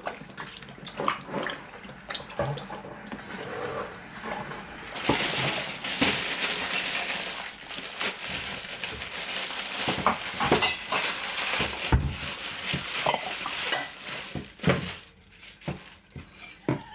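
Dishes and cutlery clattering at a kitchen sink, with the tap running for several seconds in the middle, as in washing up.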